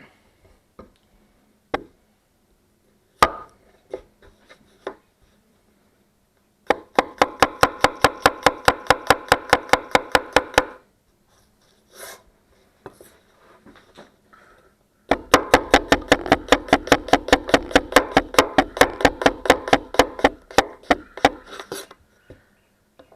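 Damascus gyuto chef knife chopping fast on a cutting board, each stroke a sharp knock at about six a second. A few single cuts come first, then two rapid runs, a short one and a longer one, with a pause between.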